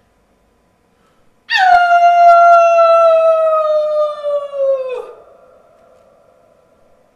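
A human voice imitating a wolf's howl: one long note of about three and a half seconds, sliding slowly downward and then dropping off sharply at the end.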